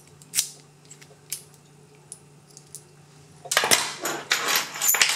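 Metal locks and keys being handled and set down on a wooden table: a few light clicks, then from about three and a half seconds in a run of metallic clinks and rattles with a brief ringing.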